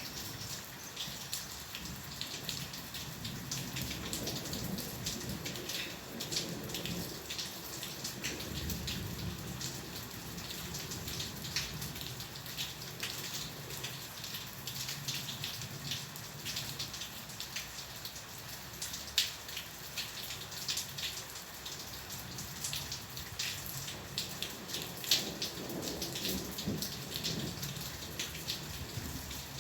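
Steady rain with sharp, individual drops pattering on a surface, and low thunder rumbling twice, once a few seconds in and again near the end.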